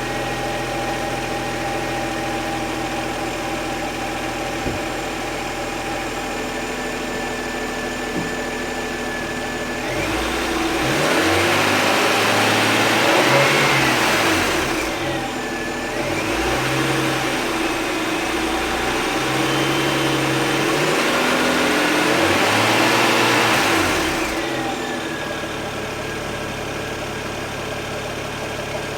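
BMW N54 twin-turbo straight-six idling, then revved twice to around 3,000 rpm, each rev held for several seconds before dropping back to idle. The owner is chasing a tick that he hears loudest toward the front of the engine, at the front turbo and the AC.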